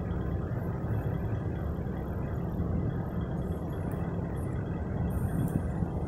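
Steady low rumble of a car's engine and road noise, holding an even level without revving.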